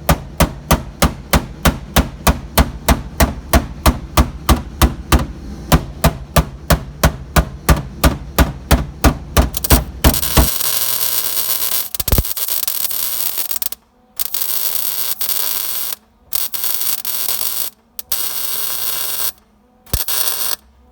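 Metal being hammered at a steady pace of about four blows a second for around ten seconds. Then the hammering stops and a harsh, steady hiss follows in about five bursts, each broken by a short pause.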